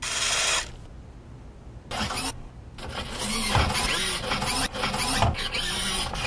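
Robot-movement sound effects: a short hiss near the start, then from about two seconds in a run of mechanical whirring and servo-like buzzes with brief breaks, in time with a man's jerky robot moves.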